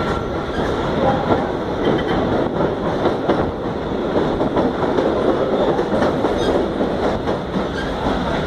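Egyptian National Railways passenger train running along the track, heard from aboard: a steady loud rumble of wheels on the rails with occasional clicks.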